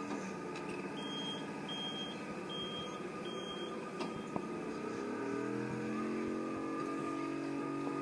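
Motors of several remote-control monster trucks whining as they drive, a steady layered mechanical whine whose pitch shifts upward about five seconds in.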